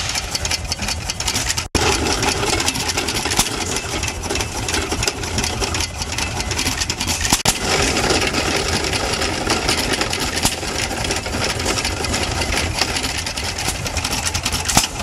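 Hit-and-miss gas engine running a belt-driven corn grinder: a steady low rumble under a dense, rapid clatter of knocks. The sound drops out for an instant just under two seconds in.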